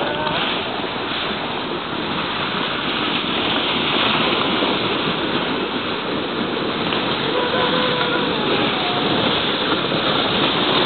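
Sled sliding fast down a snowy hill: a steady rushing scrape of the sled over packed snow.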